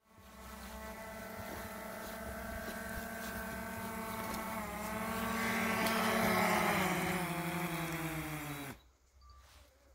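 DJI Mavic Air 2 drone's propellers humming at a steady pitch and growing louder. The pitch then sinks, and the hum cuts off suddenly about nine seconds in.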